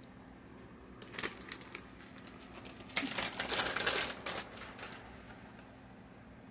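Plastic bag of shredded cheese crinkling and rustling as it is handled, in a short spell about a second in and a louder, denser one from about three seconds in.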